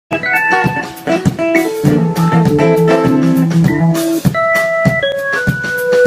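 Live band playing an instrumental passage: held keyboard chords over steady drum kit hits, with no singing yet.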